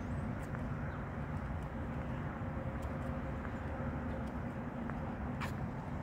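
Steady low rumble of outdoor background noise, with a few faint ticks and one short, sharp high chirp about five and a half seconds in.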